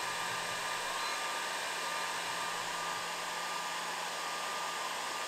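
Atomstack 20 W diode laser engraver running as it engraves a tag: a steady fan-like rush of air with a faint thin whine and a low hum, cutting in abruptly.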